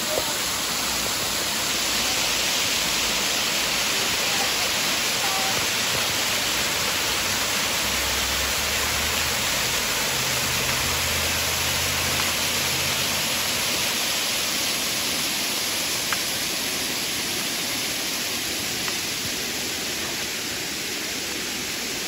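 Waterfall pouring over layered rock ledges into a shallow pool: a steady rushing hiss of falling water that eases a little near the end.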